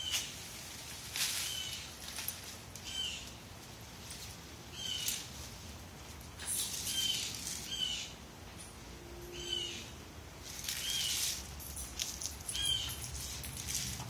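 A dog sniffing and rustling through leafy plants and mulch, in short noisy bursts, while a small bird chirps over and over in the background, about once every second or so.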